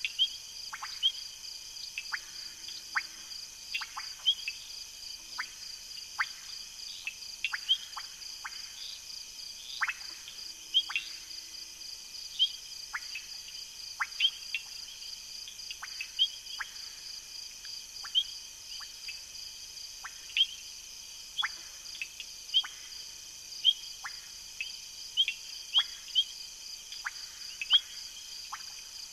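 Night chorus of insects trilling steadily, with short, sharp descending chirps about once a second over it.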